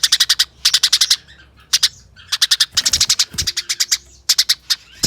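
Eurasian tree sparrow in an agitated fighting mood, giving rapid chattering bursts of sharp chirps, about ten a second, each burst lasting about half a second, one after another with short pauses.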